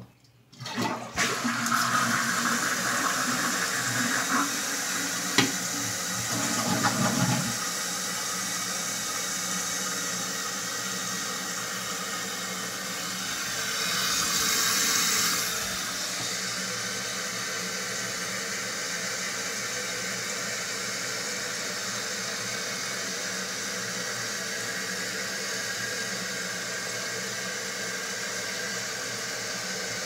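A 2001 Eljer Savoy toilet is flushed about a second in, and the tank empties with a rush of water for about six seconds. The fill valve then hisses steadily as the tank refills, briefly louder about halfway through.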